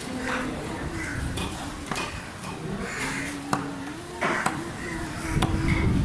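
A knife blade knocking against a wooden chopping block as skipjack tuna is cut into chunks: sharp knocks, about one a second.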